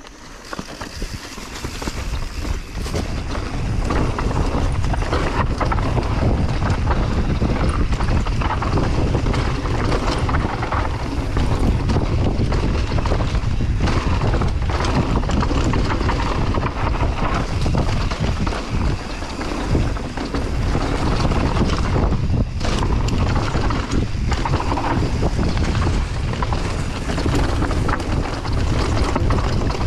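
Wind buffeting the camera microphone over the chatter and rattle of a mountain bike and its tyres riding a rough dirt trail. The noise builds over the first few seconds as the bike picks up speed, then stays loud with a few brief dips.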